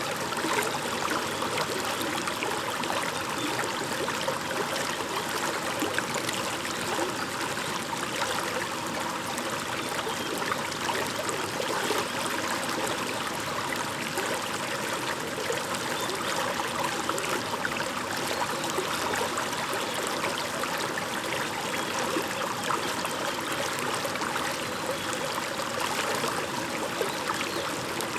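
Shallow brook babbling and trickling steadily over stones.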